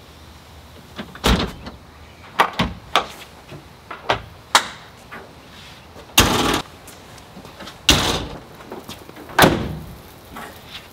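The pop-up roof of an AntiShanty Dwell Shell hard-sided truck camper being pulled down and closed: a string of irregular knocks and clunks, with heavier bangs about six, eight and nine and a half seconds in.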